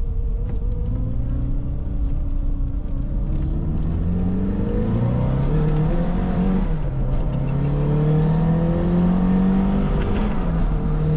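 Lotus Esprit V8's twin-turbo V8 accelerating hard through the gears, heard from inside the cabin. The engine note climbs, drops at an upshift about seven seconds in, climbs again and drops at another shift near the end.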